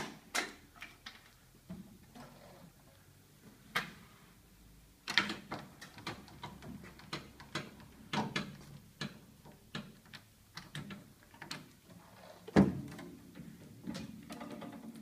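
A run of clicks and knocks from an IDEAL 4810-95 electric paper guillotine being handled and loaded, with a sharp knock at the start and the loudest, heavier thud about twelve and a half seconds in.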